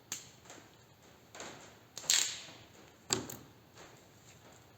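Hand-working of a long, thin sanding block on a bench: scattered light knocks and clicks, with two short rasping swishes about one and a half and two seconds in, and a sharper knock a second later.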